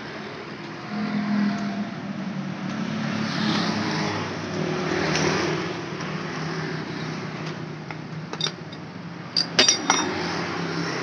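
An engine runs steadily, swelling a little in the middle. Near the end come a few sharp metallic clinks from tools and parts being handled on a motorcycle engine.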